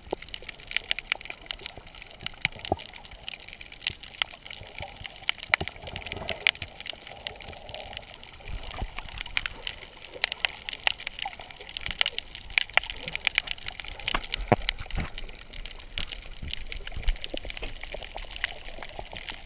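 Water heard with the camera under the surface: a steady watery hiss with many sharp clicks and crackles, and some low sloshing and rumbling from about eight seconds in as the snorkeler moves.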